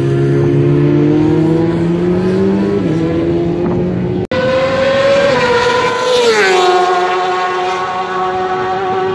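Racing superbike engines running hard on the circuit. One engine note climbs slowly in pitch, then after a sudden brief dropout about four seconds in, a bike goes by with its pitch sliding down as it passes before settling to a steady note.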